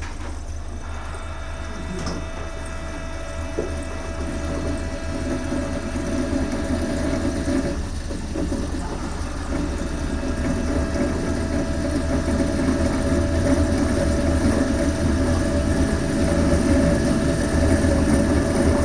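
Electric traction motors of DART train 8131 running with a steady whine over a low rumble, growing louder. The uploader calls these terrible motor noises and links them to low rail adhesion in the rain.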